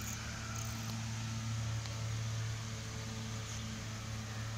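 A steady low mechanical hum under a faint, even hiss.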